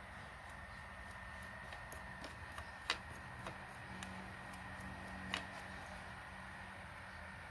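Faint scattered clicks and taps from handling an air-rifle silencer while fitting it to the barrel, with two sharper clicks about three and five seconds in, over a faint steady high tone.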